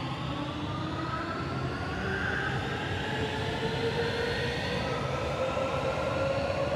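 Warsaw Metro train pulling away from a station platform, its electric traction drive whining in several tones that climb steadily in pitch as it accelerates, over the running noise of the train.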